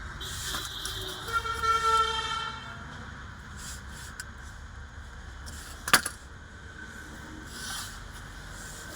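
A vehicle horn sounding for about two seconds, then a single sharp click about six seconds in.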